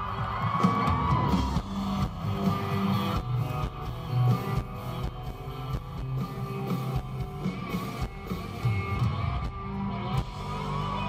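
Live rock band playing an instrumental passage: electric guitars holding and bending lead notes over bass and a steady drum beat, heard from the arena crowd.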